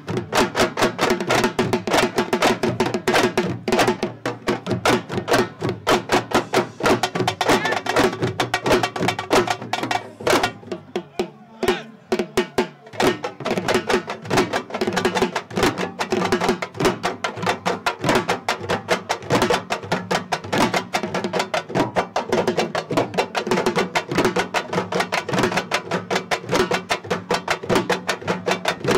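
Fast, loud sabar drumming, many sharp strokes a second, with voices over it; the drumming thins out briefly about eleven seconds in, then comes back in full.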